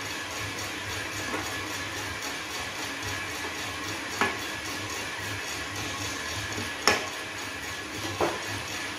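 Small electric drum coffee roaster running, peaberry coffee beans tumbling in the rotating drum in a steady, rhythmic swish over a low motor hum during the drying phase of the roast. Four sharp clicks break through, the loudest about seven seconds in.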